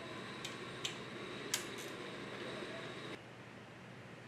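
Steady shop hum with a few light, sharp metal clicks in the first two seconds from hand tools working on the cylinder heads of a Rotax 912 engine. The hum drops abruptly a little after three seconds.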